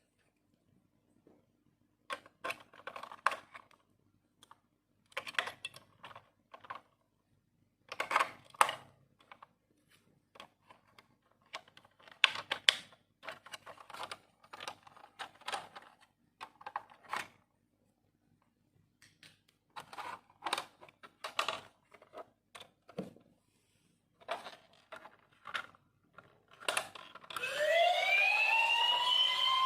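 Short irregular bursts of plastic clicking and rattling as a battery-powered toy fire truck is handled. About 27 seconds in, the toy's electronic siren switches on with a loud wail that swoops up and down in pitch.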